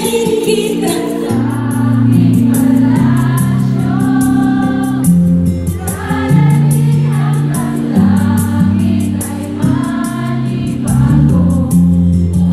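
A woman singing live into a handheld microphone over an amplified band, holding long notes in phrases that rise and fall, with bass and a steady drum beat underneath.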